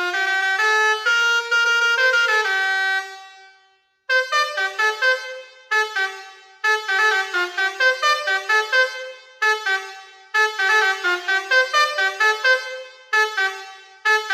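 Basuri V4 21-tone air horn playing 'telolet' melodies: a tune of stepped notes fades out about three seconds in, and about four seconds in a new tune of quick, short notes begins.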